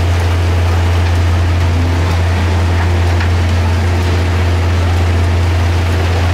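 Heavy diesel machinery of a gold trommel and sluice plant running: a loud, steady low drone with an even hiss over it that does not change.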